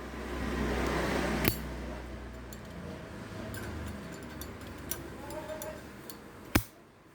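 Zippo lighter's metal lid being flicked: a crisp, sharp metallic clink about a second and a half in and another near the end, with a short rasp before the first and faint small ticks between.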